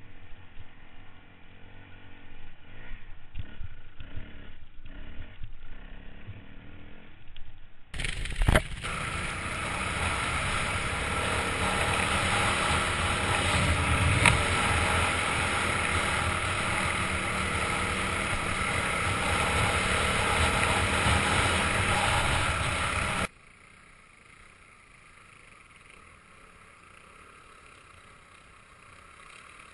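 Off-road motorcycles running as they are ridden, the sound changing abruptly twice. About eight seconds in it turns much louder and noisier, with a sharp knock just after the change, and it drops to a low level at about twenty-three seconds.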